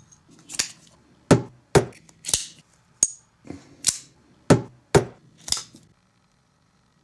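About ten sharp metallic clicks and snaps, some in quick pairs, one with a brief high ring about three seconds in; they stop about six seconds in.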